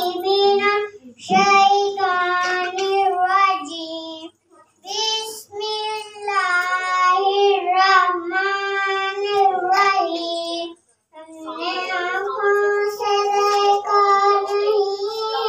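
A young girl singing a naat unaccompanied into a handheld microphone, in long held phrases with a few short breaks between them.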